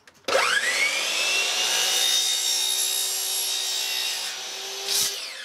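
Metabo miter saw spinning up with a rising whine and cutting through a 4-inch green PVC drain pipe. Near the end the saw is released and winds down with a falling whine.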